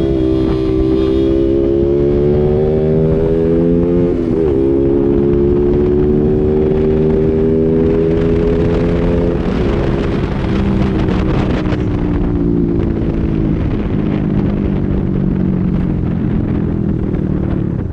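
KTM Duke's single-cylinder engine through an open SC Project exhaust, running under way with its pitch climbing slowly, dipping sharply about four seconds in and again near ten seconds, then slowly falling.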